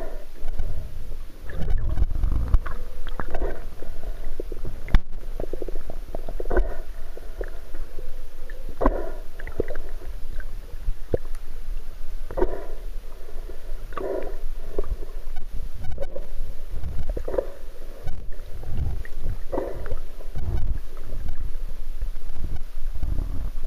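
Muffled underwater sound picked up through a waterproof camera housing: irregular swishes and low rumbles of moving water every second or two, with a few sharp clicks.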